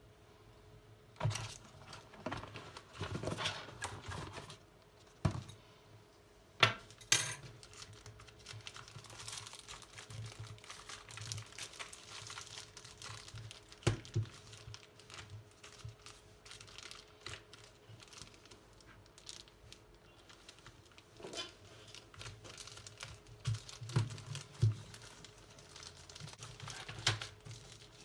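Keyboard packaging being handled: plastic and paper crinkling and rustling, with scattered sharp knocks and clicks as the box and its contents are moved.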